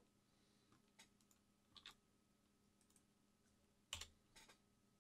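Faint clicking of a computer keyboard and mouse over near silence: a few separate taps, a quick double tap about two seconds in, and the loudest pair about four seconds in.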